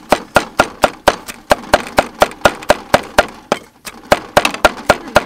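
Cleaver chopping peeled garlic cloves on a thick round wooden chopping board: quick, even strokes about four a second, with a brief pause a little before four seconds in.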